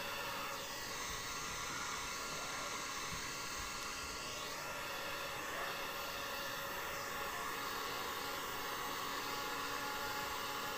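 Handheld electric heat gun blowing a steady hiss of hot air as it shrinks window tint film to fit a car's rear windshield.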